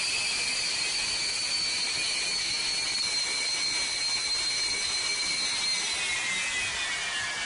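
High turbine whine over a steady rushing hiss. Its two tones hold steady, then fall in pitch about three-quarters of the way through, as in a spool-down.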